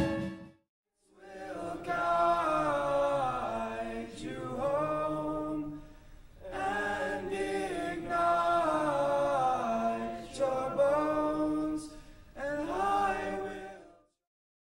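All-male a cappella group singing in close harmony, in several phrases with short breaks, cutting off about fourteen seconds in. In the first half second the tail of an instrumentally accompanied number fades out before the singing begins.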